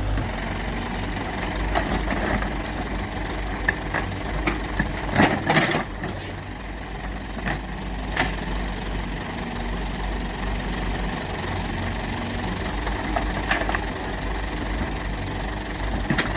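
Doosan excavator's diesel engine running steadily, with scattered metallic knocks and a louder burst of clatter about five seconds in, as the machine digs and loads soil and rock.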